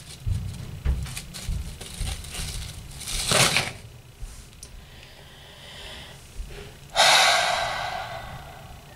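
Pringles chips clicking and tapping against a wooden desktop as a ring of stacked chips is handled, with a short sharp breath about three seconds in. Near the end comes a loud, breathy sigh that starts suddenly and fades out over a second or so.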